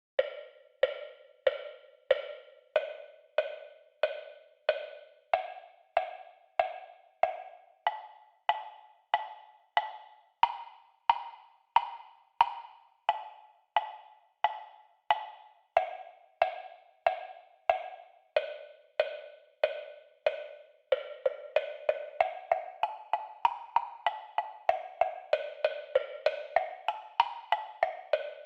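Ron Vaughn TP-770 temple blocks struck one at a time, about three strikes every two seconds, each a hollow wooden knock with a short ring; the pitch steps up through the blocks and back down again. From about three quarters of the way in the strokes come much faster, running across the different blocks until the end.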